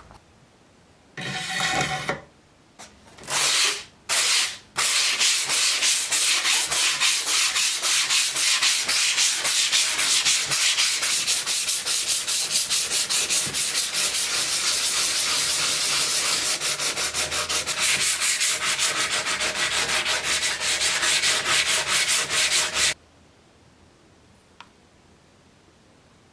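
Hand sanding of the rusty steel bayonet scabbard. A few short strokes come first, then a long run of rapid back-and-forth rubbing that stops suddenly.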